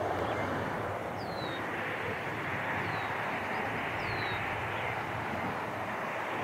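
Boeing 777's twin GE90 jet engines giving a steady, even rush as the airliner starts its takeoff roll. A few faint, short, falling high chirps come through above it.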